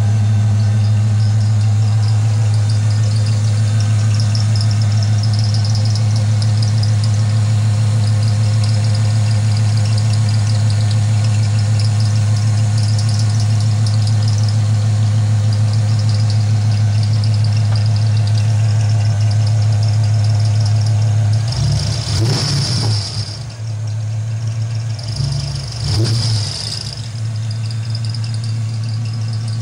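Chevrolet 5.7-litre LT1 V8 idling steadily on a cold start, with a light, repeating squeak from the serpentine belt. The engine note changes briefly twice about two-thirds of the way through. It is firing strongly, though the owner finds one cylinder a little low on compression.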